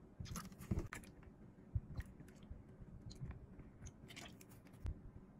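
Short clicks, crinkles and knocks from plastic condiment bottles with flip caps and a wooden spoon being handled over a ceramic bowl, as soy sauce and then vinegar are measured out.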